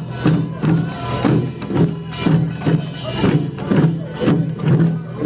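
Korean pungmul percussion band playing: drums and small hand gongs beating a fast, steady rhythm.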